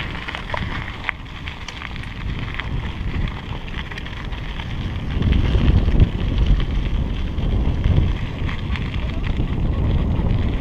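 Wind buffeting the action camera's microphone while riding an electric bicycle over a gravel path, with tyres crackling on the gravel. The low rumble grows louder about halfway through.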